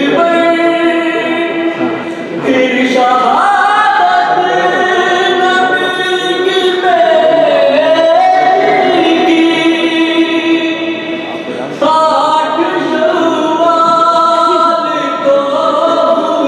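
A male voice chanting a marthiya, a mourning elegy, without instruments and through a microphone. He sings long held notes that slide between pitches, and the line breaks briefly about two and a half seconds in and again near twelve seconds.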